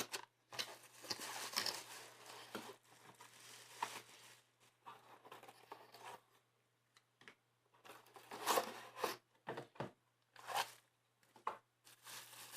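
Rustling and crinkling of packaging being handled, in short uneven bursts, the loudest about two-thirds of the way through.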